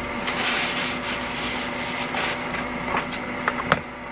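Eyeshadow swatches being wiped off skin: a steady rubbing noise, with a few light clicks near the end.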